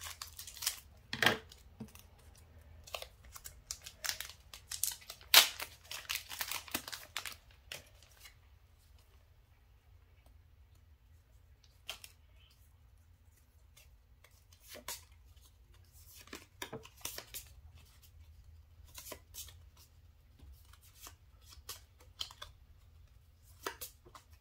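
Scissors snipping through the crinkly plastic wrapper of a Pokémon trading-card booster pack, with rustling and tearing of the wrapper, busiest in the first eight seconds or so. After that come only scattered soft rustles and clicks as the cards are slid out and handled.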